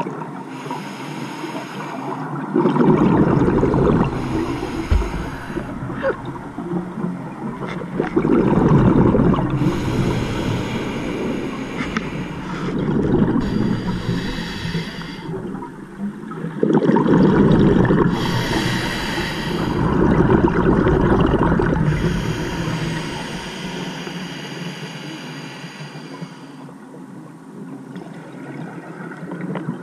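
Scuba diver breathing through a regulator underwater: hissing inhalations alternating with exhalations bubbling out of the exhaust, several slow breaths.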